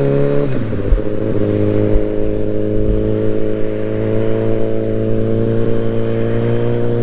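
Inline-four sport motorcycle engine pulling under way. Its revs drop sharply about half a second in, as on an upshift, then climb slowly and steadily.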